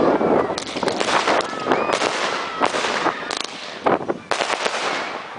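Fireworks going off in repeated sharp bangs and crackles, about one every half-second to second, with people's voices among them.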